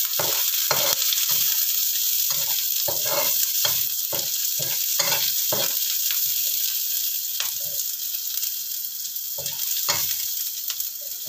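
Chopped shallots, garlic, onion and ginger sizzling in oil in a non-stick wok, with a spatula scraping and knocking against the pan in quick, irregular strokes that thin out in the second half.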